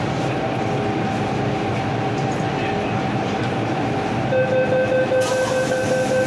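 MTR Island Line M-Train heard from inside the carriage: a steady rumble and hum with a faint constant tone. About four seconds in, a steady buzzing tone starts, and a high hiss joins it about a second later.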